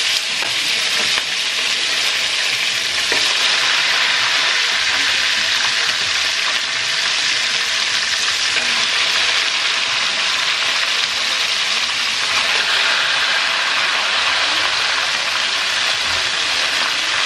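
Pieces of meat sizzling steadily in hot oil in a frying pan as more pieces are spooned in.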